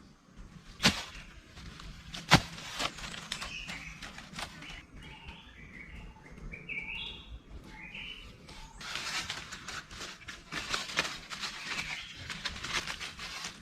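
Two sharp knocks, then a bird chirping a run of short notes, then a stretch of dense crackling rustle.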